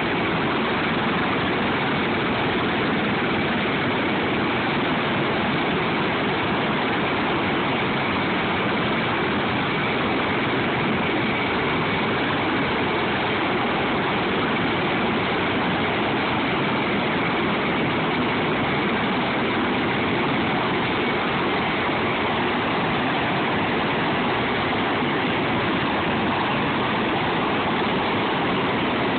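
Sikorsky MH-53E Sea Dragon helicopter with its three turboshaft engines running and rotors turning: a steady rush of turbine and rotor noise with a thin high whine over it.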